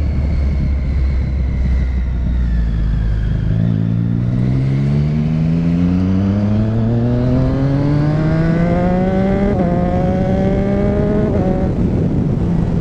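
Motorcycle engine pulling away from low speed and accelerating, its note rising steadily for several seconds with a brief dip about two-thirds of the way through. The throttle then closes near the end and the engine drops to a lower steady note, with wind and road rush throughout.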